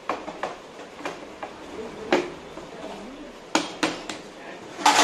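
Scattered sharp metallic knocks and clinks, about half a dozen, the loudest near the end, as a motorcycle engine's clutch cover is fitted and tapped onto the crankcase until it seats.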